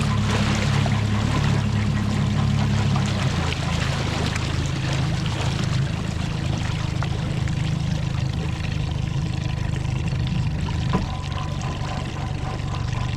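Mercury 50 hp four-stroke EFI outboard running, with steady water splashing and pouring around it. The engine note steps lower about three seconds in, and a single click sounds near the end.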